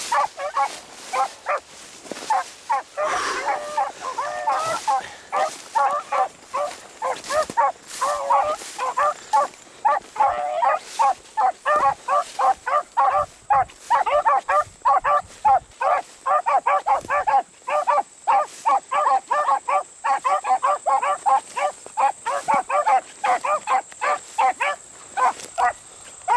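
Two beagles baying on a rabbit's track: a fast, unbroken run of short, pitched bawls, about four a second, with the two voices overlapping at times.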